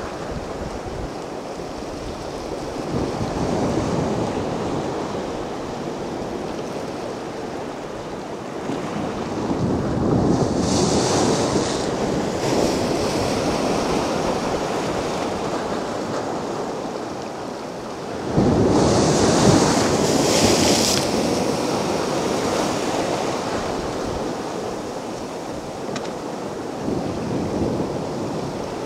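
Sea waves breaking on a beach and washing up the shore, in a steady rush that swells with each wave. There are three surges: a small one a few seconds in, a bigger one with a hissing wash about a third of the way through, and the loudest one breaking suddenly about two-thirds in.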